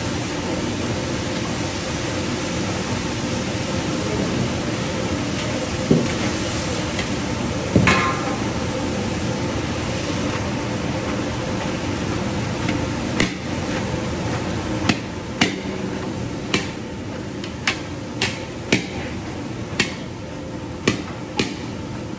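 Long steel spatula knocking and scraping against a large wok as vegetables and noodles are stir-fried: a couple of knocks early on, then sharp metallic knocks about once a second in the second half, over a steady roar.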